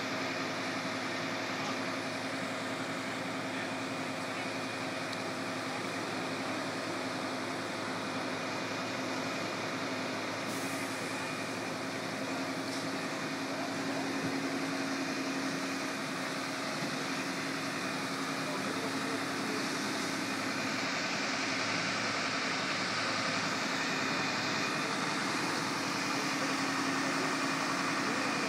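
Fire engine running steadily: a constant engine drone under an even rushing noise.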